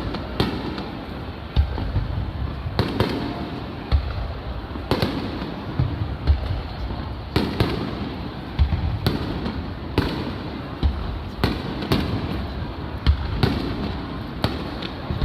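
Aerial fireworks shells bursting overhead in a rapid series of booming bangs, about one a second, each followed by a rumbling echo.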